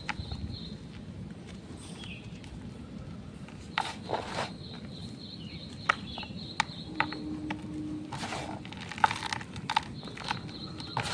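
Dyed gym chalk being crushed: scattered, irregular sharp crunches and crumbles. A faint steady high tone sits underneath.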